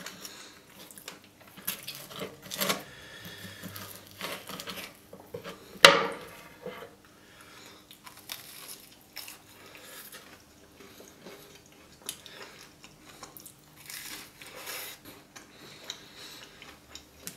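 Metal knife and fork cutting a Nutella-covered waffle on a wooden cutting board: scattered scrapes and clinks, with one sharp clink about six seconds in. Close-miked chewing of the waffle follows.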